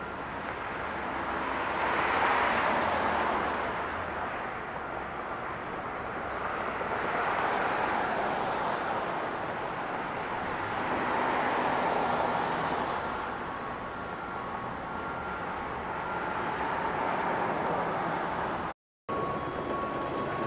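Road traffic: cars passing one after another, their noise swelling and fading every few seconds, with a brief cut to silence near the end.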